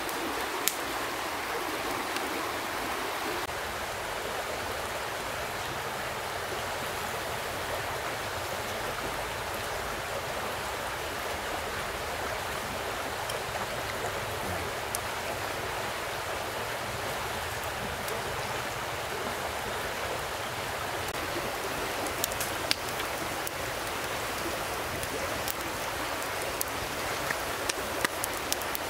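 Steady rush of flowing water, with a wood campfire crackling over it: a few sharp pops that come thicker near the end.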